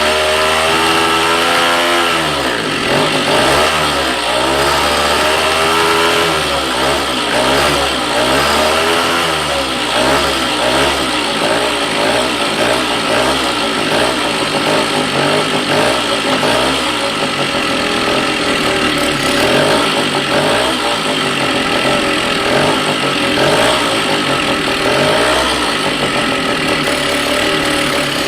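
1969 Rokon's two-stroke engine running on a freshly rebuilt carburetor, its speed rising and falling again and again, every second or two.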